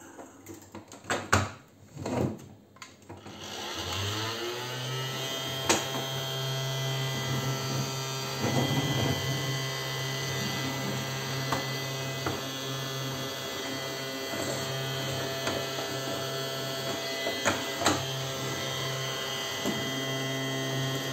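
ELC children's toy vacuum cleaner switched on and running its built-in vacuum-cleaner sound, a steady hum with a whine, like a real vacuum cleaner. It starts about three seconds in, after a few plastic clicks.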